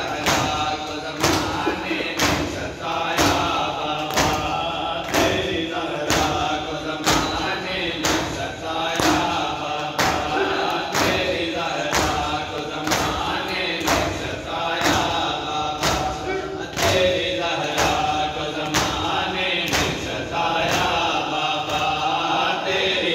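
Matam: a group of men beating their chests with open palms in unison, a sharp slap about every two-thirds of a second, over men's voices chanting together.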